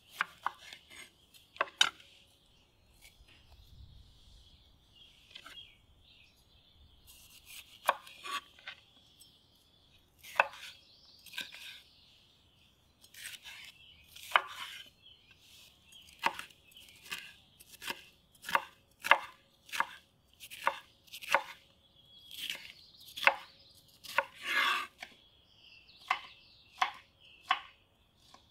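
Chef's knife slicing a bell pepper on a wooden cutting board: a series of sharp knocks as the blade cuts through and meets the board. The knocks are sparse at first, then come steadily, about one to two a second, in the second half.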